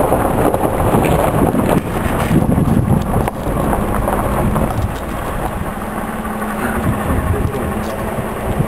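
Car driving up a gravel road, heard from inside: a steady engine hum under tyre and road noise.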